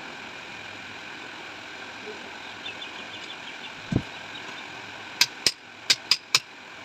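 Steady workshop hum, then one dull thump and a quick series of five sharp metallic clicks or taps near the end, as metal parts and tools are handled during a motorcycle rear shock absorber repair.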